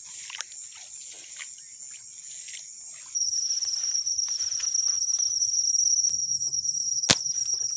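Night crickets and insects trilling steadily at a high pitch, the trill jumping louder about three seconds in. Near the end comes a single sharp crack, a .177 air rifle shot fired at a quail.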